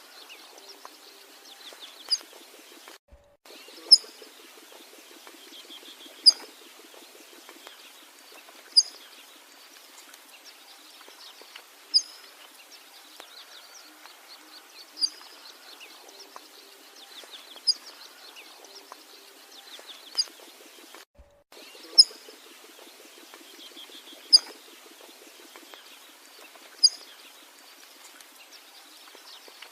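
A bird gives a short, sharp, high chirp again and again, about every two to three seconds, over a background chorus of fainter bird calls and buzzing.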